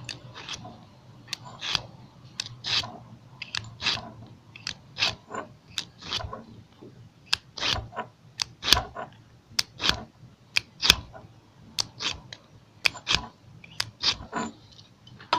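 A serrated folding knife blade drawn again and again through a pocket ceramic knife sharpener: short scraping strokes, about two a second, each sharp and brief.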